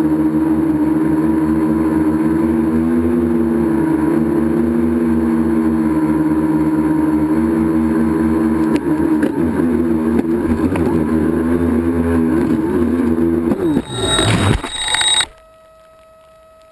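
Tricopter's electric motors and propellers heard from the onboard camera, a loud steady buzzing hum that wavers with the throttle. About fourteen seconds in the craft crashes into the grass, with a short rough clatter of the props striking vegetation, and the motors cut out abruptly, leaving only a faint steady tone.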